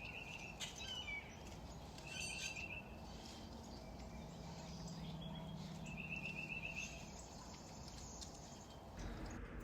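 Birds chirping: a short pulsed trill repeated three times, with scattered higher chirps, over a steady background hiss and a low hum in the middle.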